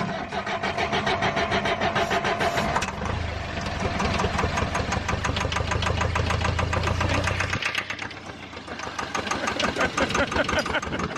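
The John Deere mini excavator's diesel engine, its starter jumped directly with a pair of sockets, cranks and catches about three seconds in. It then runs unevenly, its deep note dropping away near eight seconds before picking up again. The rough running comes with leaking injector lines, one fitting stripped.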